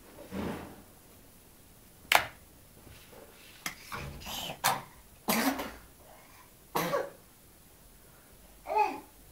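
A nine-month-old baby making short throaty vocal sounds, about half a dozen separate bursts with pauses between, and one sharp click about two seconds in.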